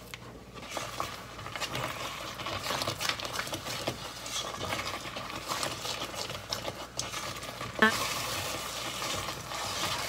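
Spatula stirring and scraping thick sweet azuki bean paste along the bottom of a pot over the heat, the thickening paste bubbling and spattering in irregular crackles. A brief squeak about eight seconds in.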